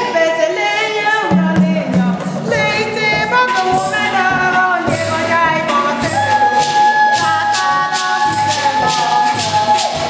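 A congregation of women singing together, accompanied by tall hand-played barrel drums and a rattling percussion rhythm.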